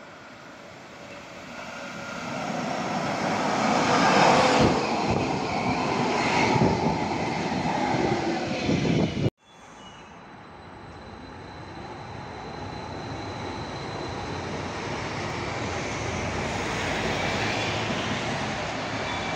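Bogestra B80D Stadtbahn light rail cars passing at speed. The first draws near and goes by with rising wheel-on-rail running noise and a falling whine, cut off abruptly about halfway through. Then a second train's running noise swells steadily as it approaches and passes.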